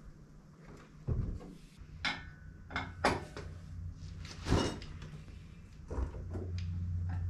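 Scattered metal clunks and knocks, several seconds apart, as an engine hanging from an engine hoist is lowered and set into the car's engine bay. A low steady hum comes in near the end.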